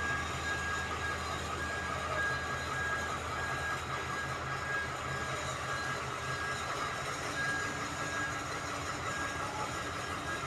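Demag AC 80-1 all-terrain mobile crane's diesel engine running steadily as the crane creeps in reverse, its reversing alarm giving an evenly repeating high beep. The engine's low hum drops in pitch about seven seconds in.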